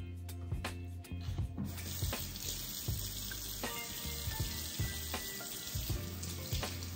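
Kitchen tap running into a stainless-steel sink, the stream splashing over a cut green pepper as its seeds are rinsed out. The water comes on about two seconds in and runs steadily.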